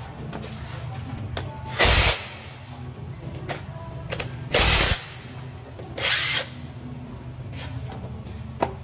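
Three short bursts of a power tool, each under half a second, over a steady low hum.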